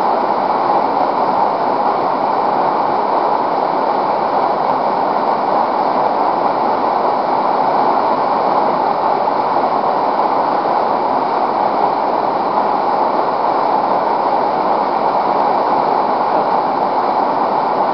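Waterfall pouring down a narrow rock gorge: a loud, steady rush of falling water with no breaks.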